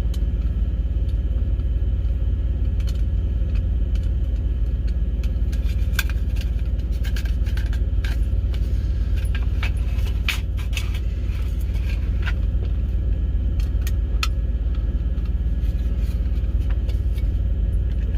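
Steady low rumble of an idling truck engine, with scattered light metallic clicks and clinks of small tin parts and screws being handled, most of them in the middle of the stretch.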